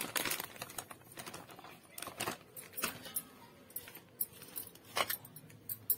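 Plastic flour packet crinkling as maida is poured out onto a steel plate, then fingers working through the flour against the plate. Scattered light clicks and rustles.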